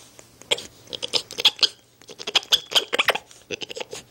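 Spider monkey close to the microphone, making rapid clusters of short squeaky chirps and clicks.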